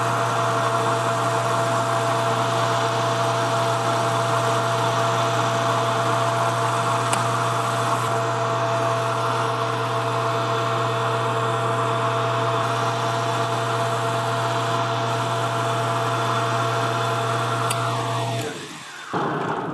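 Metal lathe running steadily, its three-jaw chuck spinning while a boring bar cuts inside the workpiece: a steady hum with two held tones over a hiss. Near the end the motor is switched off and the sound falls away as the spindle winds down.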